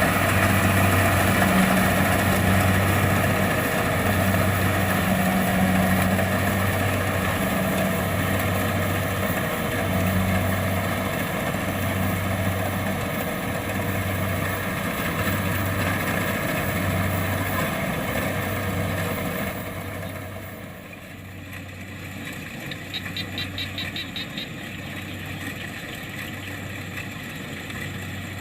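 Kubota DC-70 Plus combine harvester's diesel engine running steadily under a broad machinery rush, with a low hum that pulses about once a second. About two-thirds of the way through the sound drops and becomes duller, and a brief rapid ticking follows a few seconds later.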